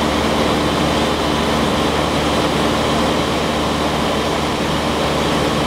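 Steady engine and propeller drone of a light single-engine Piper Tri-Pacer in cruise, heard from inside its cabin: a loud, even hum with no change in pitch.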